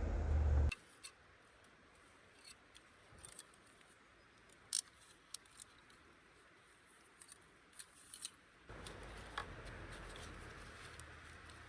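A few faint, scattered sharp clicks and light taps. A low steady hum cuts off abruptly about a second in and returns near the end.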